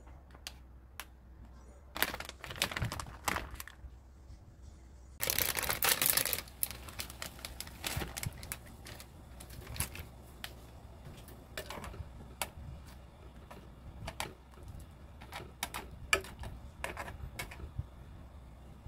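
A packet being handled with crinkly clicks, then a brief rush of noise about five seconds in. After that come irregular light clicks and ticks of capellini noodles boiling in a pot of water.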